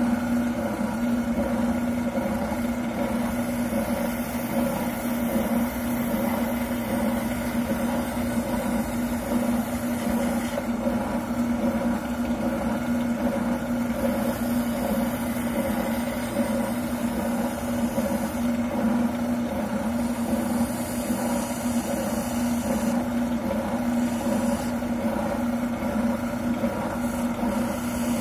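Wilton oscillating sander running with a steady electric-motor hum, sanding down a shotgun buttplate to fit the stock.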